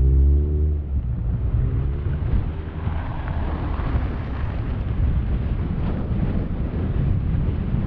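Wind buffeting the microphone, a dense low rumble, during a snowstorm. A vehicle engine's steady hum fades out about a second in.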